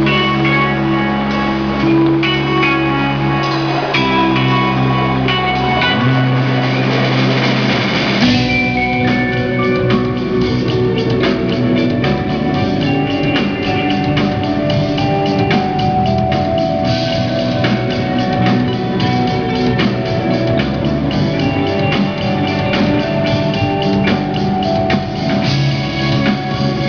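Live rock band playing without singing: electric guitars, keyboard and drum kit together, with a change to a new section about eight seconds in.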